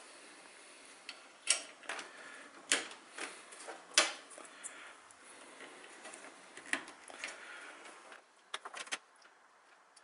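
Cables and plastic connectors being handled and plugged in inside an open steel desktop computer case: scattered clicks and knocks a second or so apart over faint hiss, the sharpest about four seconds in and a quick run of small clicks near the end.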